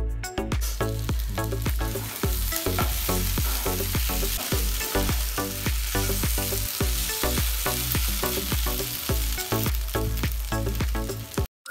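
Chicken fry sizzling in a nonstick frying pan as a spatula stirs it, the sizzle rising about a second in, over background music with a steady beat.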